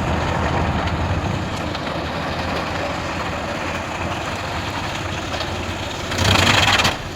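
Large wood chipper running with a steady mechanical rumble and noise. About six seconds in, a louder burst lasts under a second.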